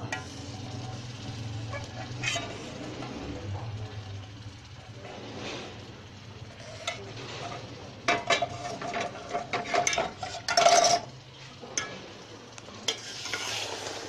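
Jaggery syrup mixing into flaxseed flour roasted in ghee in a hot pan: sizzling while a spoon stirs and scrapes against the pan. There is a run of louder scrapes and clinks about eight to eleven seconds in.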